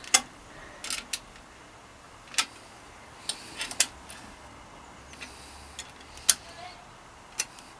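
Scattered light metallic clicks and taps, about a dozen, from a small spanner working the nuts on a bicycle mudguard's stay fixings as they are checked for tightness.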